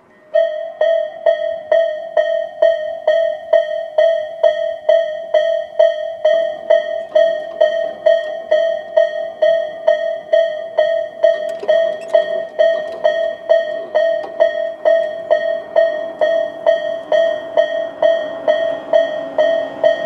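Japanese railway level-crossing warning bell, Tobu's electronic 'sound A', switching on about half a second in and striking one clear bell-like tone over and over at about two to three strikes a second: the crossing has activated for an approaching train and its barriers are coming down.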